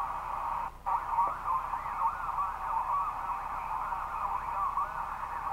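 Cobra 148 GTL CB radio's speaker putting out a received signal: a tinny, hiss-filled band with warbling, sliding tones, cutting out for a moment near the start.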